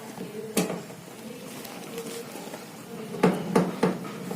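Sharp knocks and clicks of a washing machine's back cover and its screws being handled and fitted by hand: one about half a second in, then three in quick succession near the end.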